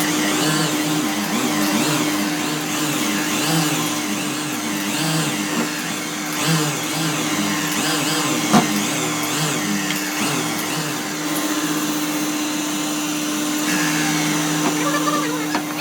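Electric woodworking power tool running steadily, its pitch wavering up and down as it works the wood, with one sharp knock about halfway through.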